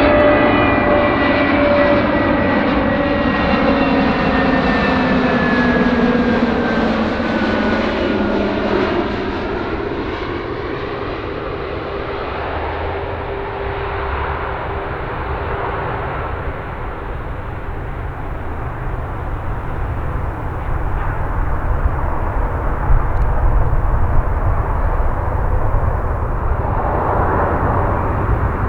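Jet airliner passing close on landing approach: its engine whine falls steadily in pitch over the first ten seconds as it goes by, then a broad rumble carries on as it moves away, swelling again near the end.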